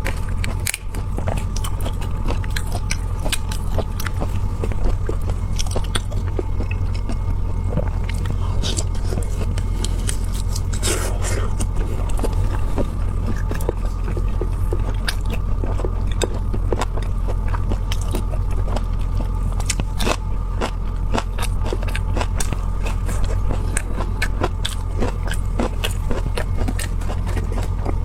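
Close-up chewing and biting of marinated shellfish, with many small cracks and clicks of shell, over a steady low hum.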